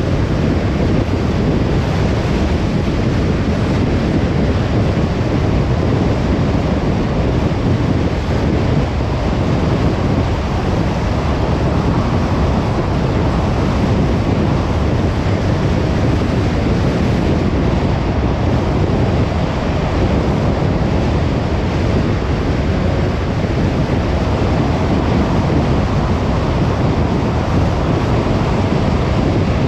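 Steady rushing road noise of a car driving: tyres and wind with engine hum, constant and unbroken, heaviest in the low end.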